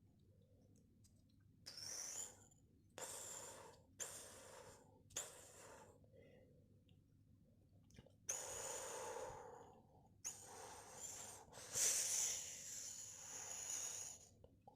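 A person imitating the sound of fire with their mouth: a series of breathy, hissing whooshes, the first four short and the last three longer and louder.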